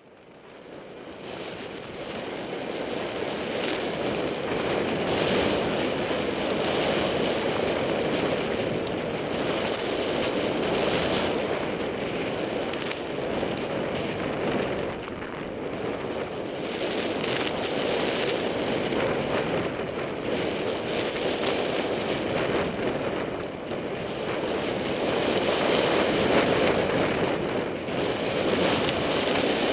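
Wind rushing over a goggle-mounted camera's microphone during a downhill ski run, mixed with the hiss of Vectorglide Butterknife skis sliding through fresh snow. It is a steady rush that builds up over the first two seconds, then swells and eases in waves.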